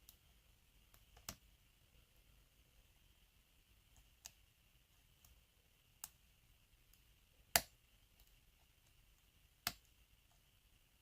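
Faint, scattered clicks of a lock pick working the pin stack of an Abus 83/45 padlock cylinder under tension, about six in all, the loudest a sharp click a little past the middle.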